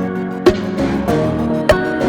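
Background music: gentle instrumental track with sustained notes and a light, regular beat.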